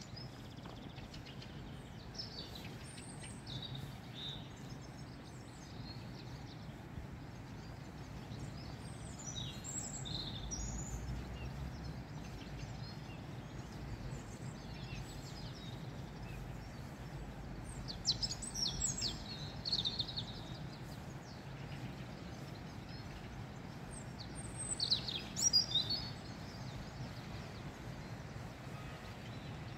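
Small songbirds chirping in short, scattered calls, with two busier clusters about 18 and 25 seconds in, over a steady low background rumble.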